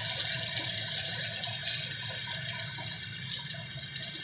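Heavy rain pouring steadily: a dense, even hiss of rainfall dotted with many small drop splashes.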